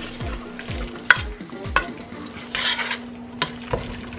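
Wooden spoon stirring a thick, wet mix of lima beans, sliced wieners and cream of mushroom soup in a pot: squelching stir sounds with a few sharp knocks of the spoon against the pot, the loudest about a second in.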